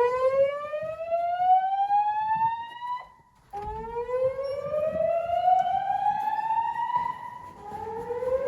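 Fire alarm voice-evacuation speakers sounding a whoop tone: a series of slow rising sweeps, each about three and a half seconds long, with a brief break between them. This is the alert tone that alternates with the spoken evacuation message during the alarm test.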